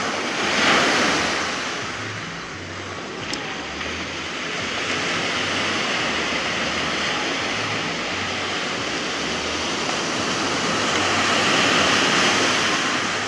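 Small waves breaking and washing up a sandy, pebbly shore, a steady rush that swells about a second in and again near the end. A single faint click a little past three seconds.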